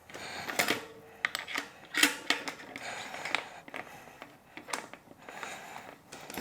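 Irregular light clicks and taps of hand tools and small bike parts being handled during a mountain bike build, a few a second.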